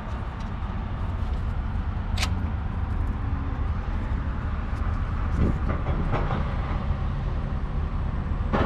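A steady low rumble, with a few sharp clicks and knocks from parts being handled under a truck's hood; the loudest click comes about two seconds in.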